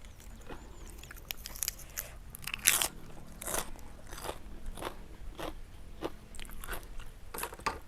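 Close-up crunching and chewing of crisp food in the mouth, with irregular crackly bites about one or two a second, one louder crunch near the middle.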